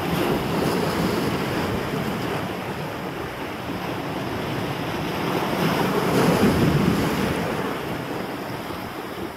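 Sea surf washing against rocks, with gusting wind on the microphone; the wash swells loudest about six to seven seconds in.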